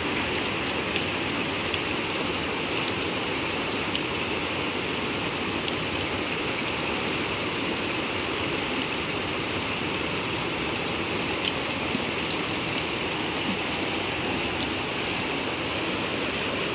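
Steady rain falling on a flooded patio, splashing into standing water, with scattered sharper drop ticks.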